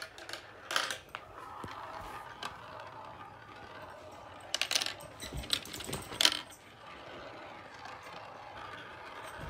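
Marbles rolling down a plastic marble-run track: a steady rolling rattle broken by sharp clicks as they strike the plastic pieces, with a cluster of clicks a little before the five-second mark and the loudest about six seconds in.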